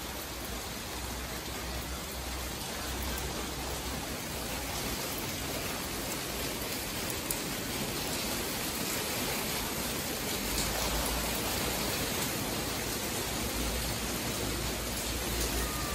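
Steady rain falling outdoors, an even hiss of drops, with a low rumble coming and going in the second half.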